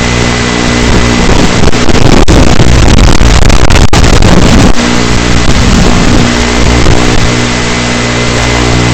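Small ET115 FPV quadcopter's electric motors and propellers buzzing loud and close, with a steady high tone over them. A few sharp clicks come around the middle.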